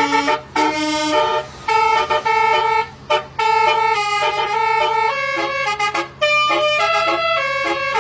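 Basuri 'telolet' multi-tone horn playing a tune: a run of held notes stepping up and down in pitch, broken by a few short pauses.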